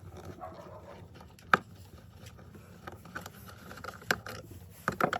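Scattered clicks and knocks of hands and tools working on the opened speaker to free its battery, with one sharp click about a second and a half in and a cluster near the end, over a low steady hum.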